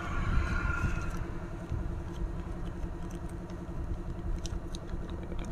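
Steady low background rumble with a faint hum, and a few light clicks as small metal parts are handled.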